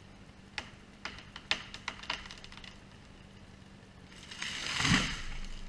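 Tree falling: a run of sharp cracks as the wood gives way, then a swelling crash of branches that ends in a heavy thud near the end.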